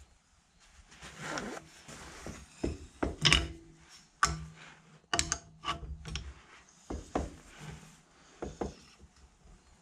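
Irregular metal clicks, knocks and scraping from a mini lathe spindle and pipe being worked by hand as an angular-contact spindle bearing is drawn into the headstock. The sharpest clicks come about three to five seconds in.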